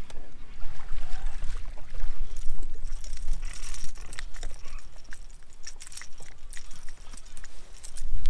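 Wind rumbling on the microphone, with water splashing as a small bass is lifted out of the lake, then sharp clicks and knocks as the fish and the Whopper Plopper topwater lure are handled.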